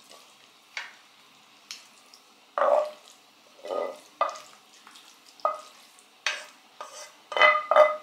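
A wooden spoon scraping and knocking cooked mushroom filling out of a frying pan, one scrape or tap every second or so. Near the end the knocks get sharper and the metal pan rings.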